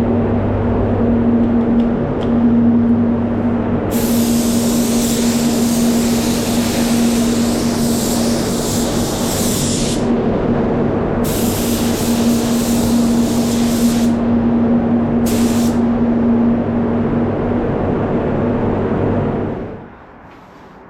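Spray gun hissing in three passes of compressed air as epoxy primer is sprayed: a long pass of about six seconds, then one of about three seconds, then a short flick. Under it a steady machine hum carries a low tone and stops shortly before the end.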